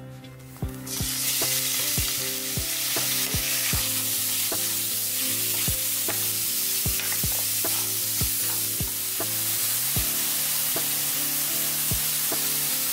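Ground pork sizzling steadily in a hot oiled frying pan, starting about a second in as the meat goes into the pan, while it is stirred and broken up with a wooden spatula.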